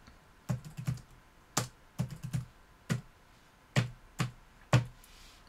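Typing on a computer keyboard: about nine separate keystrokes at an uneven pace, a few per second.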